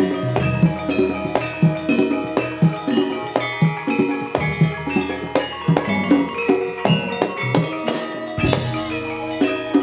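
Jaranan gamelan music: hand drums beating a busy rhythm under ringing struck metal tones, with a louder crash about eight seconds in.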